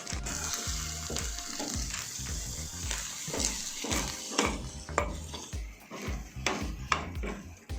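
A spoon stirring thick cooked rice gruel in a pot, scraping through it, with several sharp knocks of the spoon against the pot.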